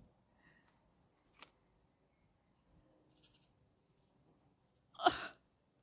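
Near silence, with a faint click about a second and a half in. Near the end comes a short, loud breath from a person.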